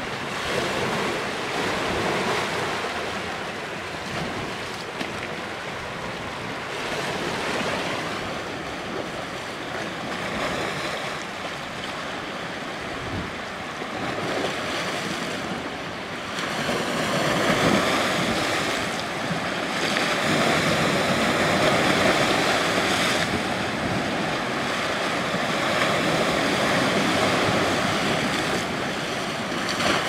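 Lake Michigan waves washing in and splashing against a flat rock ledge at the cliff foot, a continuous surging wash that rises and falls with each wave and grows louder in the second half.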